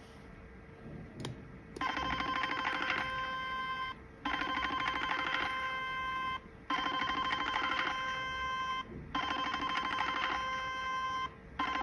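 Portable HIFU treatment machine beeping as its handpiece fires lines of ultrasound pulses: a fast-pulsing electronic ringing tone in repeated bursts of about two seconds with short gaps, starting about two seconds in.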